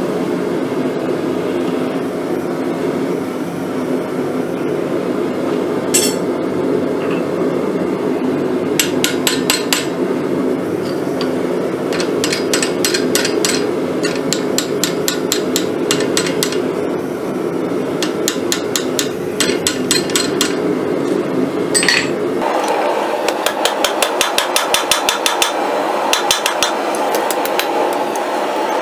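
Blacksmith's hammer striking red-hot steel in short runs of quick blows over a steady low rushing noise. Near the end a steady fast series of blows begins, about three to four a second, as hot steel is hammered on the anvil horn.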